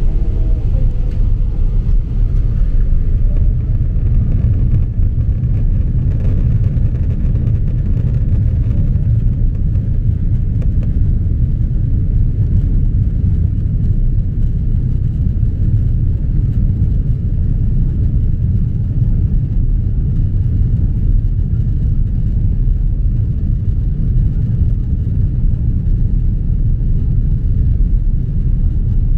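Airliner's jet engines at takeoff power heard from inside the cabin during the takeoff roll: a loud, steady, low rumble.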